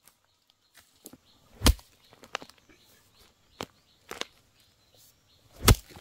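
About half a dozen irregular sharp knocks or strikes, two of them much louder than the rest and about four seconds apart.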